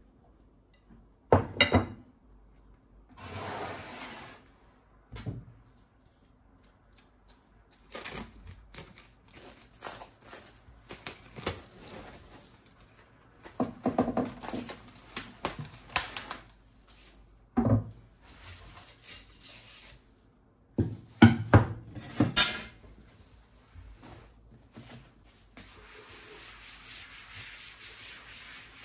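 Kitchen handling sounds: scattered knocks and clatters, the loudest coming about a second in and again a little after twenty seconds, between stretches of rubbing and scraping.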